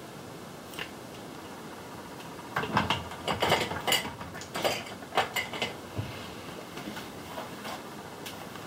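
A light click, then about three seconds of clicking and clattering of small hard items: makeup containers being rummaged through and set down on a counter.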